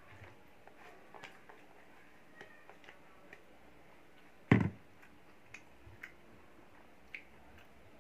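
Light scattered clicks and taps of a clear plastic container and food being handled over a plate, with one sharp knock about four and a half seconds in.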